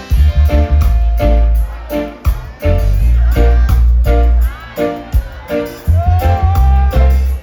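Live reggae band playing through a festival PA: a heavy bass line under short, chopped chords and a steady ticking cymbal, with a voice gliding over it now and then.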